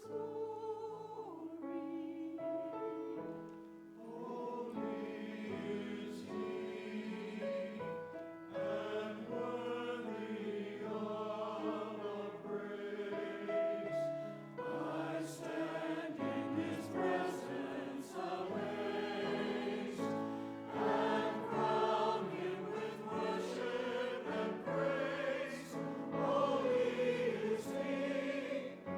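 Choir singing a hymn in long held notes.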